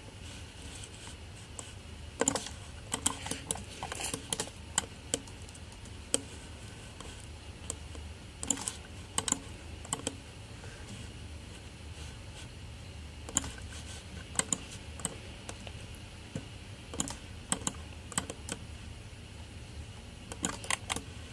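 Computer keyboard keys and mouse buttons clicking in sparse, irregular clusters over a steady low hum.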